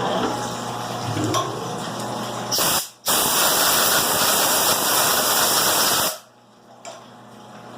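A loud, steady spraying hiss in a CNC mill starts about two and a half seconds in, breaks off for an instant near three seconds, and cuts off about six seconds in. Before it there is a softer noisy background.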